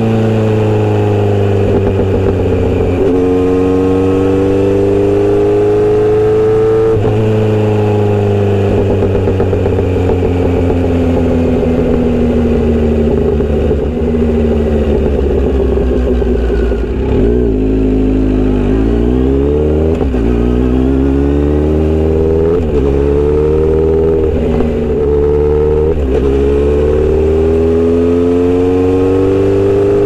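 Kawasaki Z900RS inline-four running through a Misty Kintaro short aftermarket exhaust under way, its note rising and falling with the throttle. About midway the pitch drops as the bike slows, then it climbs again in several short rising runs as it accelerates through the gears.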